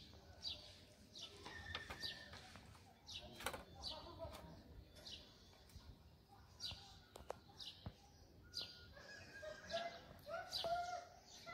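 Small birds chirping: short, high, downward-sliding chirps repeating about once or twice a second, with a few faint clicks. From about eight seconds in, a quick series of short rising-and-falling calls joins in, lower in pitch.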